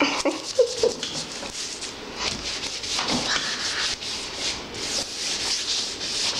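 Hands being rubbed clean of chocolate: a quick run of scratchy rubbing strokes, close by.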